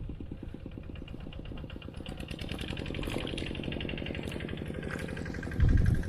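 A small engine running with an even, rapid beat, picking up a little from about two seconds in, with a short loud low thump near the end.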